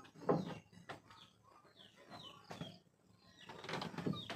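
Chickens clucking in a series of short, separate calls, some of them falling in pitch.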